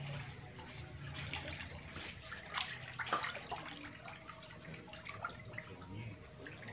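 Hooked catfish thrashing at the pond surface, making irregular small splashes and sloshing, with a couple of stronger splashes around the middle.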